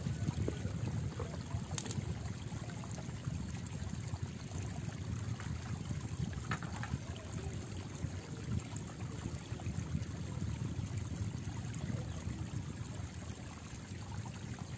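Small waves lapping against a stony riverbank: a steady, low rush of water, with a couple of faint clicks.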